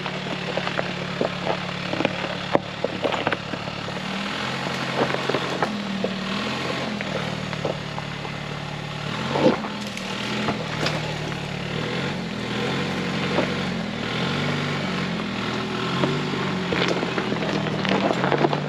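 2024 Toyota Tacoma TRD Off Road engine running at low revs in 4-low, its pitch rising and falling with the throttle as the truck crawls, with loose rocks crunching and popping under the tyres.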